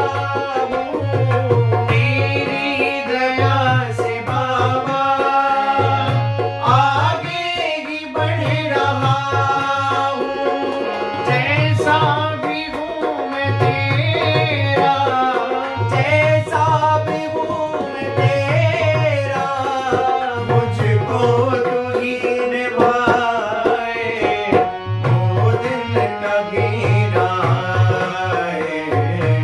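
Hindi devotional bhajan music: a harmonium playing the melody under a male singing voice, with a dholak keeping a steady repeating rhythm of deep bass strokes.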